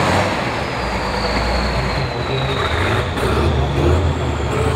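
Diesel engine of a Tatra 6x6 off-road trial truck working under load as it crawls over a steep dirt slope, with a thin high whistle slowly falling in pitch over it.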